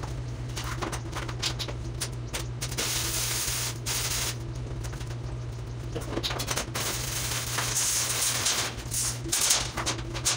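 Stick welding with an E6011 electrode: the arc crackles and spits irregularly over a steady low hum, the crackle heavier near the end.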